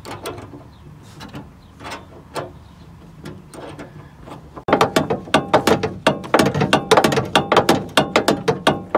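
Ratcheting screwdriver clicking as it backs out the small screws holding a sheet-metal cover panel. There are scattered faint clicks at first, then about halfway a fast, loud run of even clicks.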